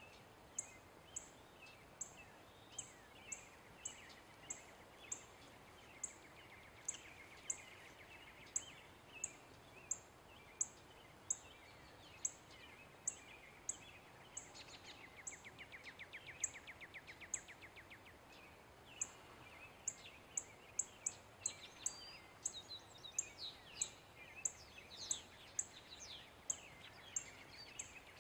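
Male northern cardinal giving a long series of sharp chip calls, one to two a second, each a quick downward note, coming a little faster in the second half. Other birds chirp faintly behind, with a fast trill about fifteen seconds in.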